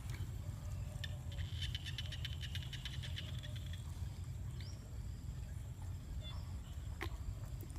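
Outdoor ambience: a steady low rumble, with a short rapid clicking trill about two seconds long starting about a second and a half in, and a few faint chirps and ticks after it.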